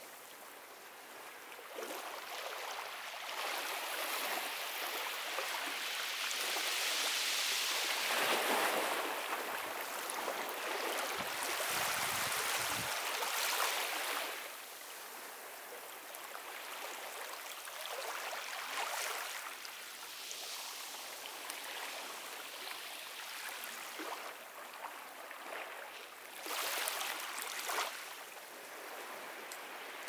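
Ocean surf breaking and washing up the beach. A long rush of wave noise builds through the first dozen seconds, peaks about eight seconds in and falls away around fourteen seconds; a smaller surge follows near the end.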